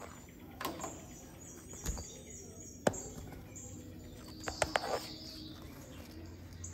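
A cat swiping at a wand toy inside a fabric play tunnel: a few sharp taps and rustles, the sharpest about three seconds in and a quick cluster of them past the middle, over faint high-pitched chirps.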